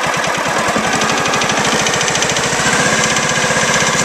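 Riding lawn tractor's small petrol engine running with the throttle opened up after warming up, a steady rapid firing beat that gets a little louder about two-thirds of the way through.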